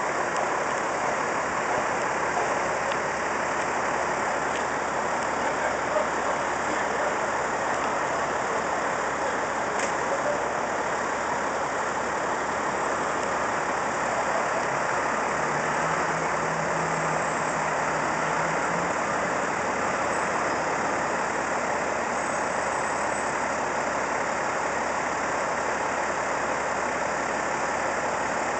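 Diesel engine of a parked Seagrave fire engine idling steadily, mixed with constant street noise.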